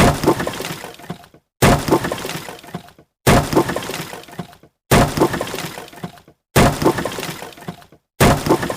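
Wood breaking: a sudden crash followed by splintering and rattling that dies away over about a second. The same crash repeats about every second and a half, six times.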